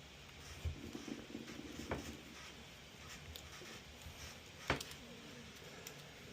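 Small clicks and scraping of a screw being pressed and turned into an unthreaded aluminum graphics-card bracket, with one sharper click about three-quarters of the way through; the screw does not bite and turns loose.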